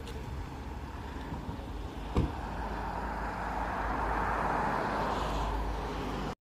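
Road traffic over a steady low rumble: a car passing by, its sound swelling and then easing off over a few seconds. A short knock about two seconds in.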